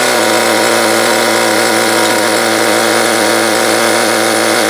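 Small two-stroke nitro RC engine, an HPI Nitro Star G3.0 .18, idling steadily in the truck with an even, unchanging buzz and no revving.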